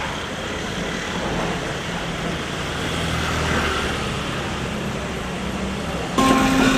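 Street traffic: motor vehicle engines running with a steady rumble and general road noise. About six seconds in, the sound jumps abruptly to something louder with a steady hum.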